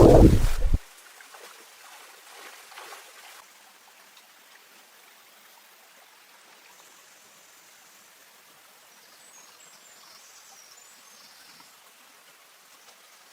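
A brief loud low rumble in the first second, then the faint, steady rush of running stream water, with a few faint high chirps about two-thirds of the way through.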